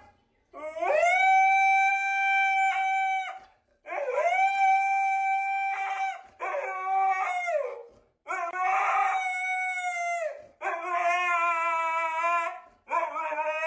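A husky-type dog howling: about six long howls in a row, each two to three seconds, rising at the start, held at a steady pitch and falling away at the end; the last two waver up and down in pitch.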